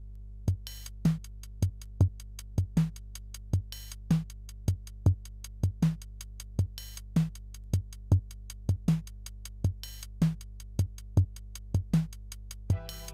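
Electronic background music: a drum-machine beat of kick drum and sharp claps or hi-hats over a steady low bass drone, with held synthesizer notes coming in near the end.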